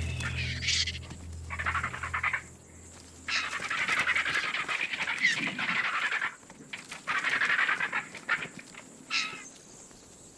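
A crowd of vultures squabbling over a carcass: repeated raspy hisses and harsh cackles in bursts of a second or two, with a couple of short rising squeals.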